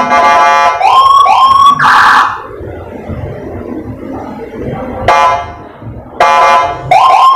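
A police-escort siren module (LANDUN PJR type) playing through a 10-watt TOA horn speaker, sounded in short test bursts. A steady tone gives way to two quick rising whoops and a harsh horn blast about two seconds in. After a pause of about three seconds come two short steady tones and one more rising whoop near the end.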